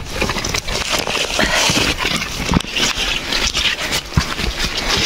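A hiker's footsteps on a trail, irregular dull thuds about every half second, under a steady rustle of rain shell and backpack.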